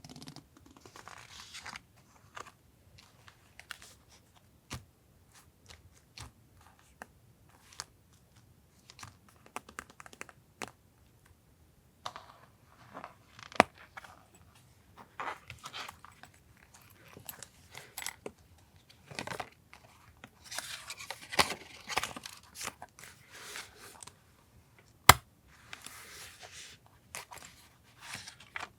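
Paper being handled for journal collage: scattered taps and clicks of things set down and picked up, with bursts of rustling and tearing paper about two-thirds through and again near the end. Two sharp clacks, one near the middle and one near the end, are the loudest.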